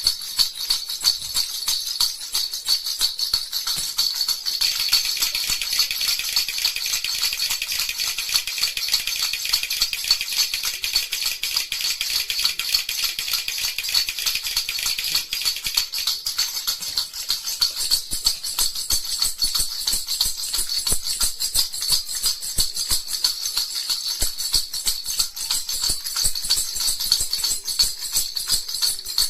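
Baby rattle (jhunjhuna) shaken continuously: a fast, dense, high-pitched rattling that reaches fuller and lower from about five to fifteen seconds in.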